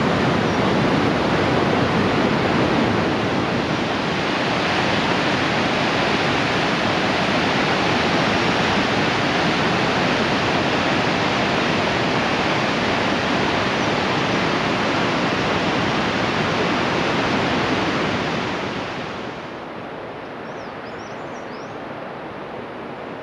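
Whitewater mountain river rushing over boulders, a loud steady rush of water that fades down to a softer rush about nineteen seconds in. A few faint high chirps come in near the end.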